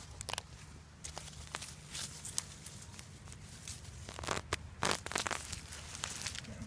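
Irregular crunching and tearing rustles of soil and potato plants as potatoes are pulled and dug up by hand, with a cluster of louder crunches about four to five seconds in.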